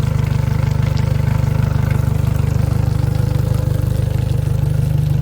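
Yamaha F115 four-stroke outboard motor idling steadily, running smoothly after its first startup in years.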